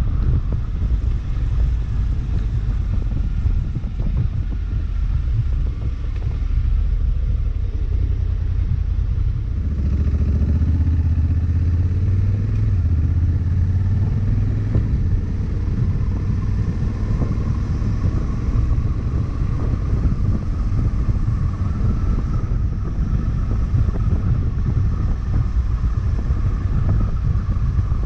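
Honda CRF1100L Africa Twin's parallel-twin engine running while riding, with a steady low rumble of engine and road noise. About ten seconds in, the engine note swells and rises in pitch for a few seconds.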